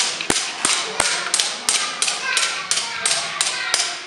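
Wooden gearing of a camel-driven waterwheel clacking evenly, about three sharp knocks a second, as its pegs mesh; the knocking stops abruptly at the very end.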